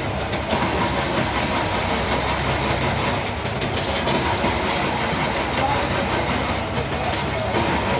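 Large knife scraping the scales off a big tripletail fish in continuous repeated strokes.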